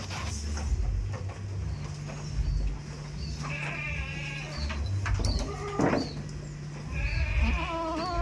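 Goats bleating: a quavering bleat about three and a half seconds in and another, longer one near the end, over a low rumbling background noise.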